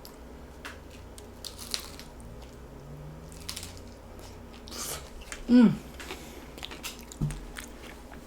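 A crunchy fried tostada shell being bitten and chewed, with scattered crisp crunches. A brief voiced sound from the eater falls in pitch about five and a half seconds in and is the loudest moment.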